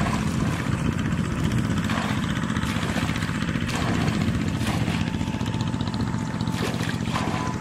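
A small engine running steadily with a fast, even beat, over repeated splashing as buckets of muddy water are poured out.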